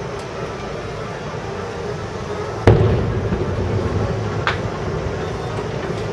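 Aerial firework shell bursting with one loud boom about two and a half seconds in, its rumble rolling on for a few seconds, with a fainter, sharper crack about two seconds later, over a steady low background rumble.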